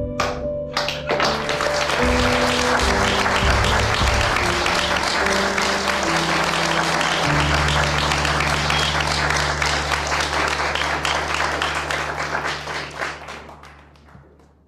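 Audience applauding over background music of held low notes; the applause fades away over the last two seconds or so.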